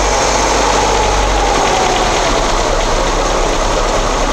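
Lada 4x4 (Niva) four-cylinder petrol engine idling steadily, with a faint whine sinking in pitch over the first couple of seconds. The engine has a freshly fitted mechanical timing-chain tensioner in place of the factory hydraulic one, which was replaced to cure a loud chain rattle.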